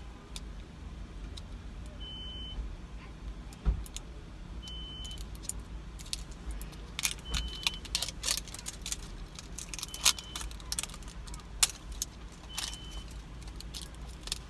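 Plastic-wrapped toy surprise ball being handled and peeled open, with rustling and light clicks that grow busier in the second half. Under it runs a steady low car rumble, and a short high beep repeats every two and a half seconds or so.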